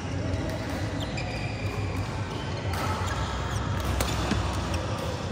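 Badminton play in a large hall: rubber shoe soles squeak on the court mat and rackets tick against the shuttlecock, with one sharp, loud hit about four seconds in. A steady low hum runs underneath.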